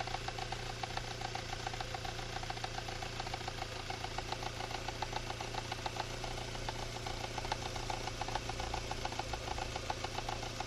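Car engine idling with a fast, regular knock running through it, a knock whose cause the owner cannot make out.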